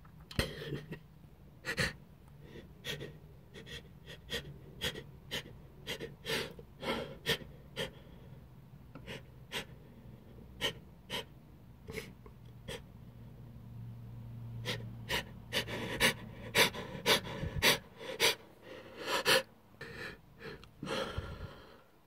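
A man sniffing and gasping in short, sharp breaths, about one or two a second, as ground pepper dust tickles his nose and a sneeze builds.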